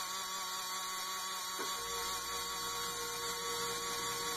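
Small electric motor of a battery-powered bubble-blaster toy whirring steadily while its activation button is held down. A click about one and a half seconds in, after which a lower hum joins the whir.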